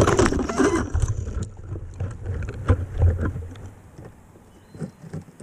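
FPV quadcopter crashing into conifer branches: a sudden loud crash, then a jumble of knocks and rustling as it tumbles through the tree, fading over about four seconds, with a couple of small knocks near the end.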